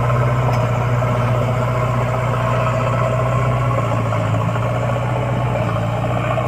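Diesel engine of a JCB backhoe loader running steadily at a constant pitch.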